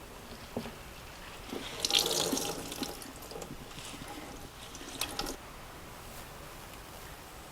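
Liquid splashing and dripping into a kitchen sink as sauerkraut is wrung out in a cloth towel, loudest about two seconds in and trailing off with a few clicks after about five seconds.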